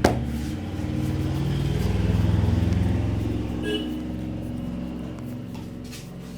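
A motor vehicle engine passing, growing louder for about two seconds and then fading away. A single sharp crack comes at the very start.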